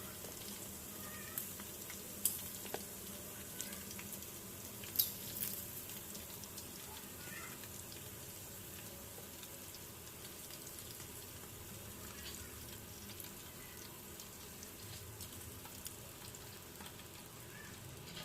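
Chicken wings deep-frying in hot oil, a steady sizzle, with a few sharp clicks about two and five seconds in.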